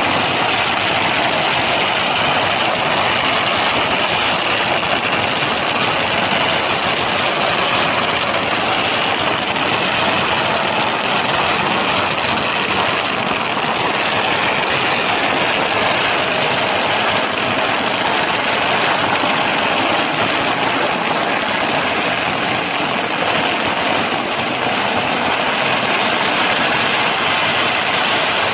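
A long string of firecrackers going off as one continuous, dense crackle, steady and loud throughout.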